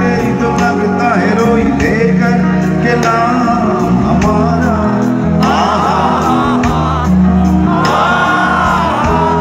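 Live rock band playing through a PA system: electric guitars and bass guitar with singing over them, heard from among the crowd.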